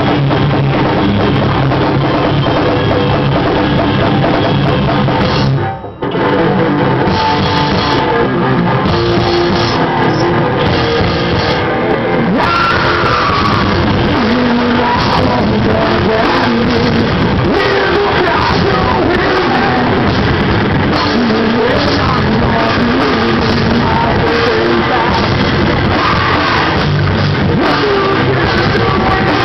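A rock band playing live, loud, with drum kit and guitars, and a short break in the music about six seconds in.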